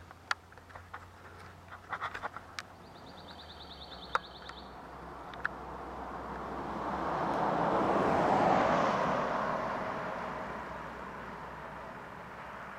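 A car passes on the road, its tyre and engine noise swelling to a peak about eight seconds in and then fading away. Several sharp clicks come before it.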